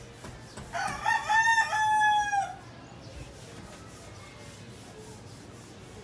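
A rooster crowing once: a call of about two seconds that breaks up at the start and ends in a long held note.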